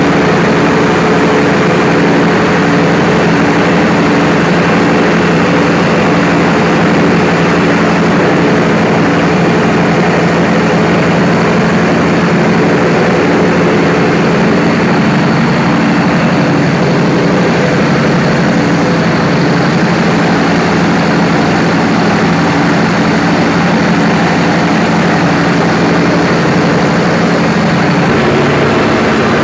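Perkins 4012 V12 diesel engine running steadily at constant speed after a general overhaul, loud and even with a deep, unchanging hum.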